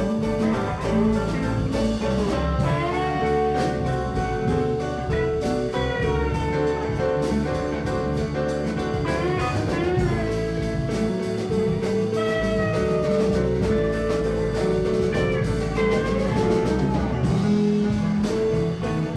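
Background music with a bluesy, jazzy feel: sustained and sliding lead notes over a steady bass line, at an even level.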